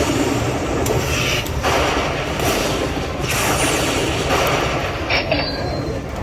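Lightning Link poker machine's bonus-round sound effects: a steady rumbling spin with short surges about every 0.8 s, and chimes near the end as the spin lands.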